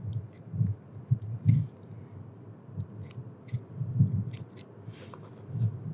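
Kitchen scissors snipping through soft razor clam flesh: irregular small snips and clicks, mixed with intermittent dull low thumps.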